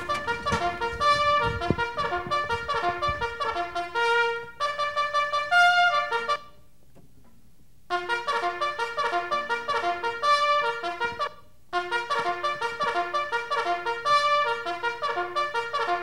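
Trumpet music: a tune of quick, short notes that breaks off for about a second and a half a little past six seconds in, then picks up again, with another brief pause about eleven seconds in.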